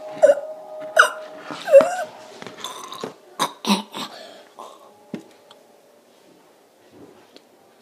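A person making several short, sharp non-speech vocal sounds in the first four seconds, some with a quick bend in pitch, then only faint clicks as it quietens.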